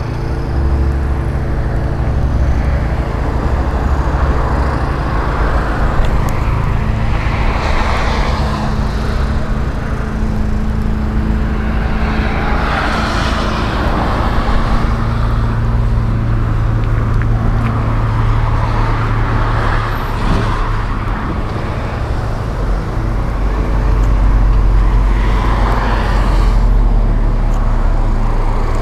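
Arbos 4090Q tractor's diesel engine idling steadily. Road traffic passes behind it, swelling and fading about three times.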